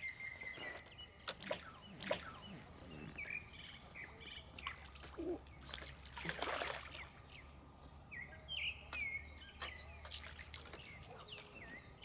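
Small birds chirping in short, repeated calls, with a brief splash of water about six seconds in as a hooked crucian carp thrashes at the surface.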